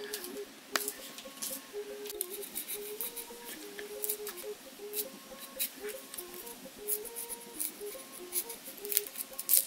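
Soft background music with a simple stepping tune, over frequent crisp clicks and scrapes of a small knife peeling a red onion. The loudest click comes near the end.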